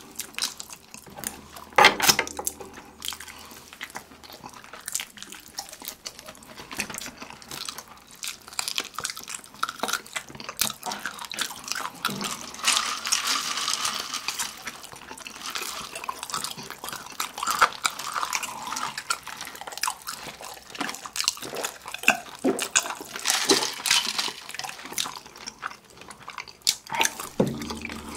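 Close-miked wet eating sounds: chewing and biting into sauce-glazed fried chicken drumsticks, a steady run of small sticky clicks and mouth smacks.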